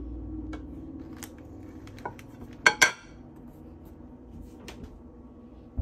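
Dishware being handled: a ceramic plate and a metal pizza server clink and knock against each other and the counter, with a pair of sharp clinks about two and a half seconds in that are the loudest, and lighter taps around them.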